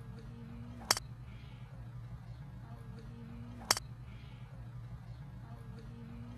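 A golf club striking the ball: a sharp crack, twice, about three seconds apart, over a steady low hum.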